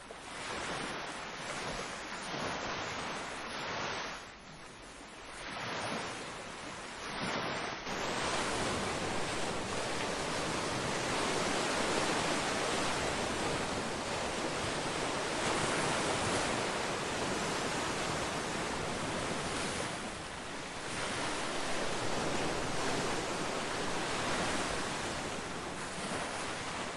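Ocean surf: waves washing in and drawing back, swelling and easing a few times over the first several seconds, then a fuller, steady wash of surf for the rest.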